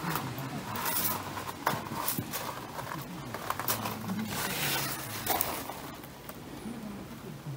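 Rustling of tent fabric and bedding with a few light knocks, as someone moves around inside a dome tent, in irregular bursts.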